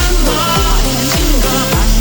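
Background music with a steady beat: upbeat electronic pop with a kick drum about twice a second.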